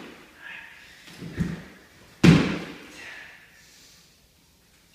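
Body dropping onto a wooden floor in a sprawl: a lighter thud about a second and a half in, then a louder slam about a second later that rings on in the bare room.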